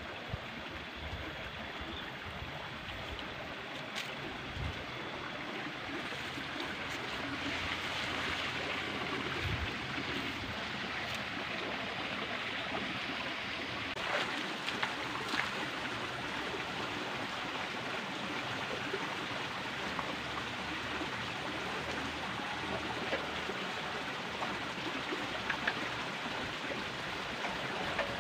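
Water running steadily along a shallow irrigation ditch, an even rushing trickle.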